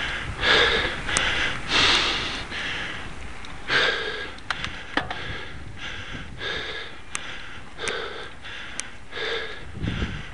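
A cyclist breathing hard on a steep climb, panting in rhythmic heavy breaths about once a second, with a few faint clicks between them.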